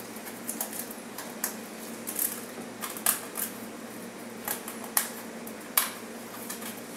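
Irregular light clicks and taps of small tools and parts being handled on a board on a hard floor, over a faint steady hum.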